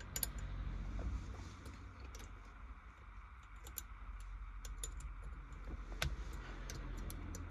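Irregular light clicks of a hand tool tightening the short shifter's mounting bolts, a few each second.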